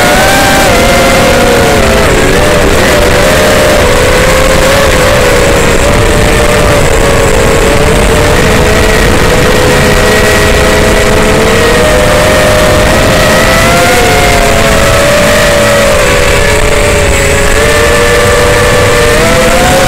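Racing drone's brushless motors and propellers whining in flight, several close tones wavering up and down together as the throttle changes, over a steady rush of prop wash and wind. The sound is picked up by a camera mounted on the drone.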